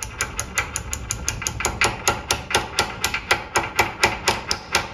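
Rapid, even hammer taps, about seven a second, on a steel round bar, bedding a rope-type rear main seal into its retainer half.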